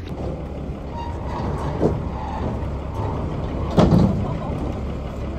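Livestock wagon's engine idling steadily, with a small knock about two seconds in and one loud knock at about four seconds.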